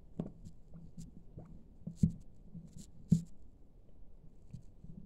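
A Siamese cat biting and pawing a roll of clear packing tape on a cloth-covered table: scattered light taps and scratchy rustles, with two sharper knocks about two and three seconds in.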